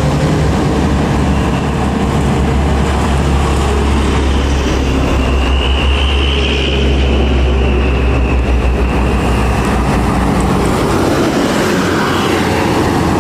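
Diesel road traffic with a Mercedes-Benz OH 1626 coach approaching and passing close by near the end: a steady low engine drone under tyre and road noise, with a faint high whine that swells and fades in the middle.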